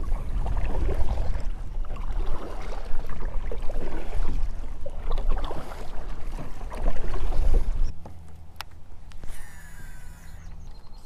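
Kayak paddle strokes splashing in the water, over a heavy low rumble. About eight seconds in it cuts to a quieter stretch: a couple of sharp clicks and the whir of a baitcasting reel's spool paying out line on a cast, falling in pitch.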